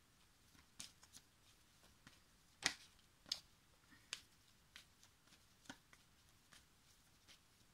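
Near silence broken by faint, scattered clicks and taps of oracle cards being handled, the loudest a little under three seconds in.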